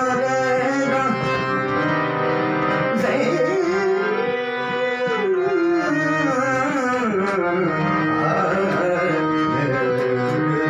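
Harmonium playing sustained notes under a man singing. His voice slides up into a long, wavering held phrase about three seconds in, then winds back down.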